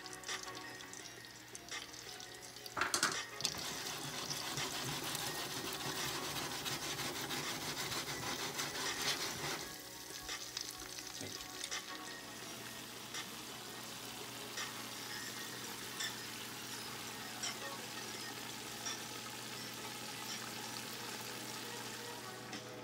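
Floured chunks of aha (needlefish) deep-frying in hot canola oil in a pot: a steady sizzle with scattered pops. It is loudest from about three to ten seconds in, after a few sharp clacks near three seconds, then settles into a lower, even sizzle.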